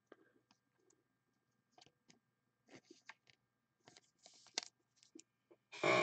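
Scattered light clicks and brief rustles of a trading card being handled, with a short rustle about four seconds in and a louder one near the end.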